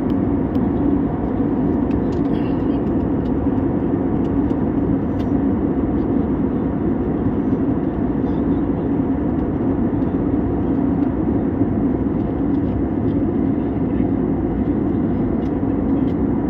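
Airplane's steady engine drone: an even, unchanging hum with no rise or fall.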